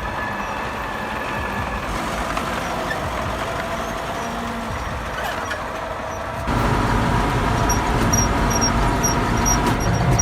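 Crawler tractor's diesel engine running steadily under work, jumping noticeably louder about six and a half seconds in.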